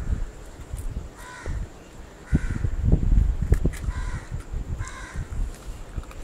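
Four short animal calls, a second or so apart, over loud low rumbling and thumps close to the microphone.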